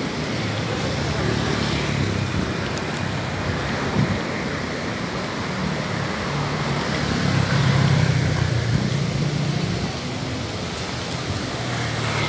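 Road traffic on a busy city street: a steady wash of car engines and tyres passing close by, with a louder vehicle swelling past about seven to nine seconds in.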